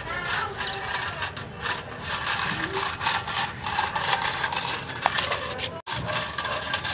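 Battery-powered walking monkey toy running on a concrete floor: its small motor and plastic gears whir while its plastic legs clatter in a fast, steady rattle. The sound cuts out for an instant about six seconds in.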